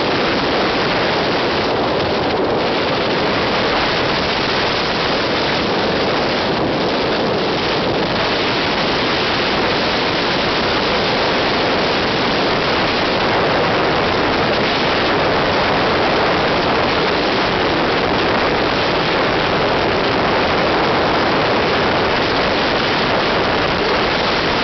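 Steady rushing noise of wind and tyres from a car travelling at expressway speed.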